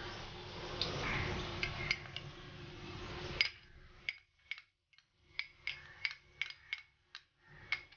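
Light glass clinks and taps as ground peanut powder is tipped from a small glass bowl into a glass bowl of soaked sago pearls, over a soft rustle in the first three seconds or so; after that come about a dozen short, separate clinks.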